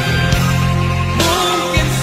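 Malay rock song playing: a band with steady bass notes and guitars under a wavering sung melody line.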